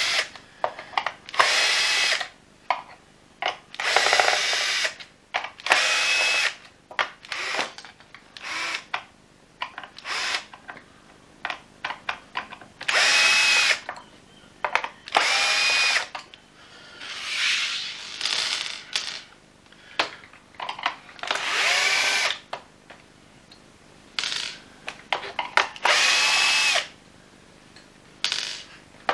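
Cordless drill-driver backing screws out of a plastic vacuum-cleaner housing, in about a dozen short bursts of roughly a second each. The motor whine rises as each burst starts and drops away as it stops. Short clicks and knocks of the bit and parts being handled fall between the bursts.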